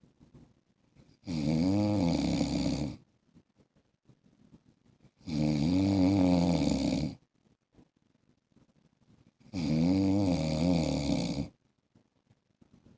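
A man snoring: three drawn-out snores about four seconds apart, each lasting nearly two seconds with a wavering pitch, and near silence between them.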